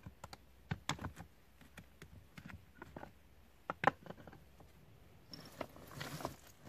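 Dry driftwood sticks and slate stones being handled: irregular light knocks and clicks of wood on rock, the sharpest about four seconds in, with a brief scraping rustle a little after five seconds.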